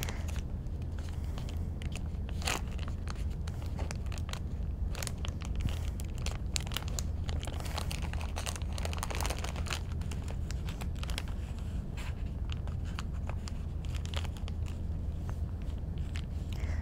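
Sterile suction catheter kit's paper-and-plastic peel pack being pulled open and handled: a run of crinkles and small crackles that goes on throughout, over a low steady hum.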